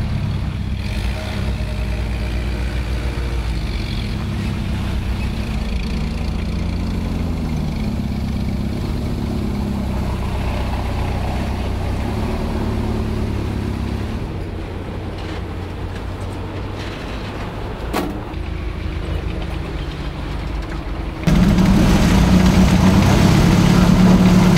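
Engines of WWII armored vehicles running steadily as they drive slowly past: a half-track, then a Sherman tank. There is a single sharp knock about 18 seconds in, and the engine sound jumps suddenly louder about three seconds before the end.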